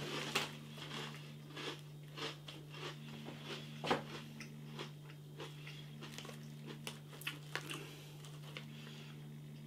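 A person crunching and chewing crunchy baked cheese biscuit sticks with the mouth, a run of irregular crisp crunches. A faint steady low hum runs underneath.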